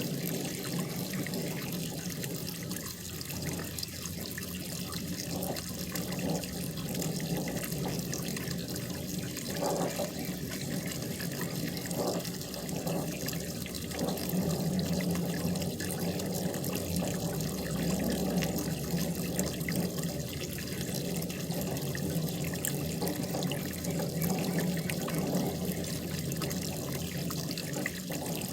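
Running water splashing steadily into a koi pond.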